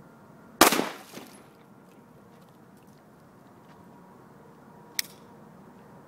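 A single shot from a Ruger P95 9mm pistol: a loud, sharp crack with a short echo trailing off, the shot that knocks a coffee mug off its crate and breaks it open. About four seconds later comes a second, shorter and quieter crack.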